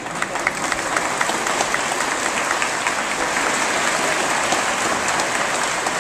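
Large audience applauding, swelling in over the first second and then holding steady. Through the first two seconds sharper claps from someone close by stand out at about four a second.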